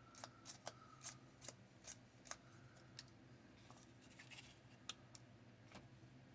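Faint, light clicks and taps of small laser-cut wooden model parts and tools being handled on a tabletop. There are about eight in the first three seconds, then a few scattered ones.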